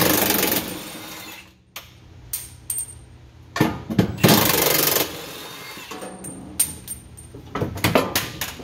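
Milwaukee cordless impact wrench hammering in two short bursts about four seconds apart, breaking loose the driveshaft carrier bearing bolts, with sharp metal clinks of tools and parts in between.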